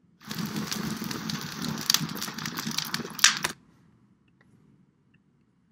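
Recorded sample of a medium wood fire crackling, dense crackle with a few sharp pops, played back and cut off suddenly about three and a half seconds in.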